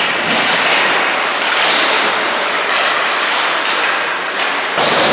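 Ice hockey rink sound: skates scraping and hissing on the ice in steady surges, with a sharp thump near the end.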